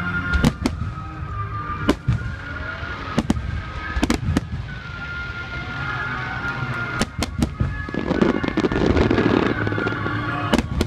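Fireworks shells bursting in sharp, sudden bangs, one every second or so, over music playing in the background. About eight seconds in there is a dense swell of noise lasting a second or two.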